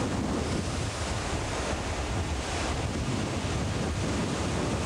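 Storm-surge surf surging and breaking over the shore, a steady rush of churning water, with strong wind blowing across the microphone.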